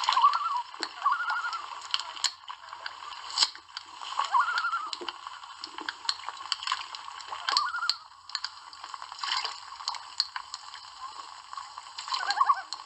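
Common loons giving short, quavering tremolo calls, about half a dozen spread through, with splashing from wings and feet beating the water. The tremolo is the loon's agitation call, given here during a face-off wing-spreading display.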